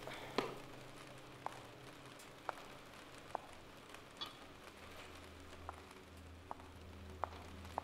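High-heeled sandals clicking on a concrete floor: slow steps about one a second, over a faint low hum.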